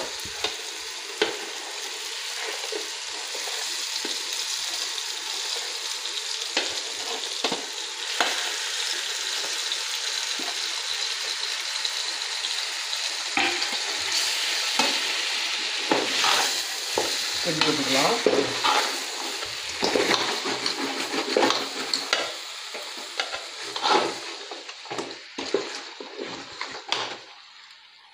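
Raw chicken pieces sizzling as they go into hot oil and masala in a metal pot, a steady frying hiss. A spoon stirs the meat through the pot, knocking and scraping against it, busier in the second half. The sizzle dies down near the end.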